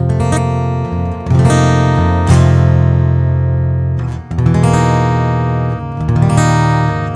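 Maton EMD6 acoustic guitar strummed in ringing chords, about six strums with the notes left to sustain between them.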